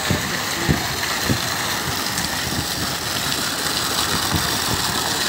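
Steady rush and splash of water from fountain jets and shallow flowing streams, with irregular low thumps.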